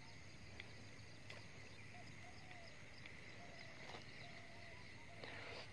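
Near silence: faint outdoor ambience with a few faint short chirps and a few soft ticks.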